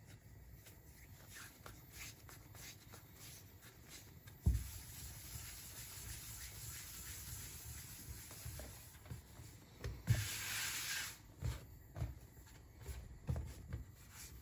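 Soft rubbing and rustling as the shaped bun dough balls are handled and covered on the work surface. A thump comes about four and a half seconds in, followed by several seconds of rustling, a louder rustle about ten seconds in and a few light knocks.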